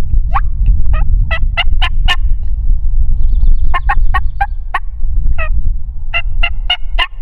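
Turkey yelping: three runs of short, evenly spaced yelps, about four a second, the last run near the end, over a steady low rumble.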